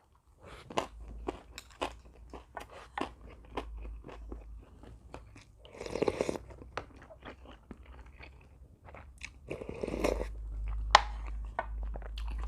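Close-up chewing with many sharp crunches, the eater biting through crisp Korean fried food (twigim). Two short, louder noisy swells come about six and ten seconds in.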